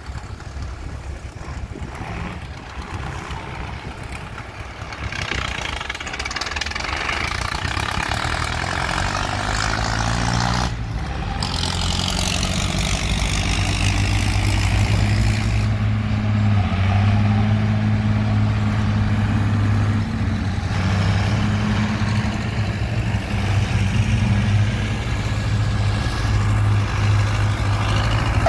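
Diesel tractor engines running as tractors drive across a sandy field, getting louder. From about halfway, a nearby tractor's engine gives a steady low drone.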